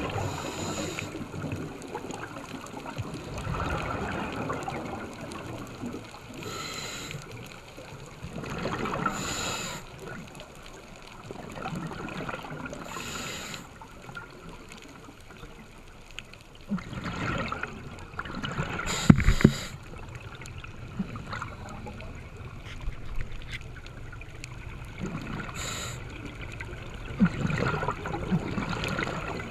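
Scuba diver breathing through a regulator underwater: bursts of exhaled bubbles gurgle every few seconds over a steady murmur of water. A couple of sharp knocks about two-thirds of the way through.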